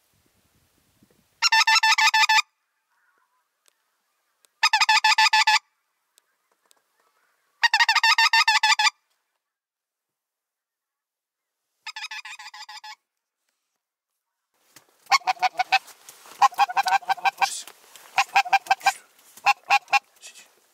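Hand-held goose call blown in three loud bursts of rapid honks about three seconds apart, a fainter burst around twelve seconds in, then a longer run of quicker, irregular honks near the end: a hunter calling to a lone goose circling overhead.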